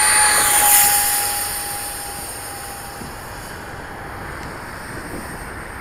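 Electric ducted fan of a 3D-printed RC U-2R model jet whining steadily, fading and dropping slightly in pitch over the first couple of seconds as the hand-launched plane flies away. A steady rush of wind on the microphone is left behind.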